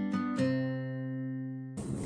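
Background music of picked acoustic guitar notes. A last chord rings on and fades, then the music cuts off suddenly near the end, giving way to outdoor background noise.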